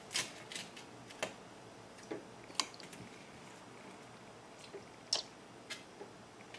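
Light, irregular plastic clicks and ticks: a small plastic dropper cup squeezed and knocking against a plastic gummy mould and tray as coloured gummy mix is dripped in.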